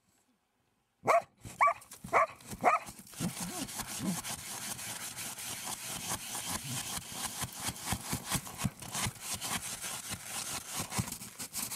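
An avalanche search dog barks four times in quick succession, alerting on the person buried in the snow cave, then digs into the snow: a continuous scraping and crunching with many quick scratches, heard from inside the cave.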